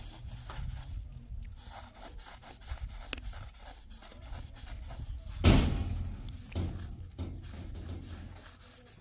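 Burlap sack being rubbed and scraped against a brick wall and gritty ground, an irregular scratchy rustling. It is broken by one louder thump about five and a half seconds in.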